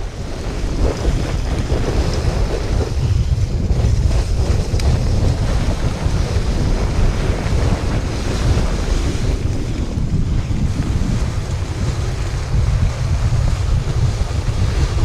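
Wind buffeting the GoPro's microphone on a fast toboggan descent, a steady rumbling rush, mixed with the hiss of the sled's runners sliding over packed snow.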